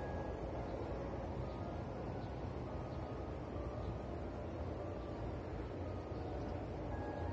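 Insects chirping in a fast, even pulse, over a steady low rumble of outdoor ambience.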